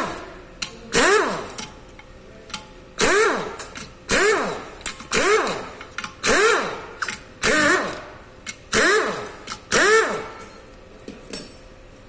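Hammer blows on the oil pan of an upside-down Kia Rio engine block: about nine sharp metal strikes, roughly one a second with a short pause after the second. Each one rings briefly with a pitch that slides.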